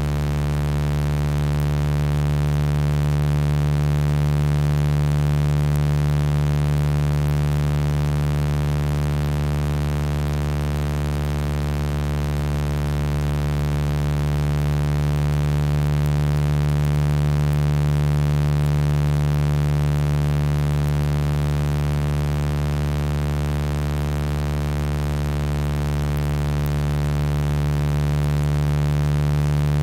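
Software-generated sound-healing tones: a steady drone of layered pure tones, strongest in the deep bass with many fainter higher tones above it, slowly swelling and easing in loudness.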